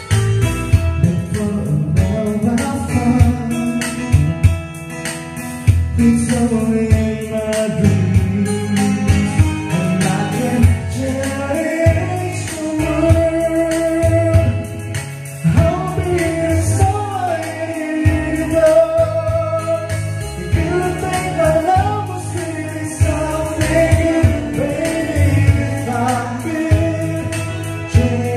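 Karaoke song playing from a Platinum Cello 2 karaoke player: an instrumental backing track with a voice singing the melody over it.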